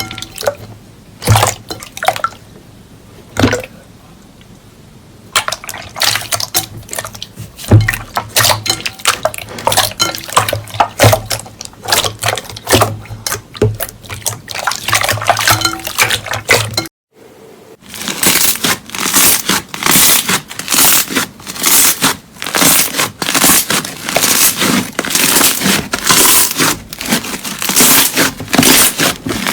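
Slime being squeezed and poked by hand: sharp, wet clicks and pops, spaced out at first. After a short break about halfway through, a dense, steady run of crackling pops, typical of crunchy slime being pressed.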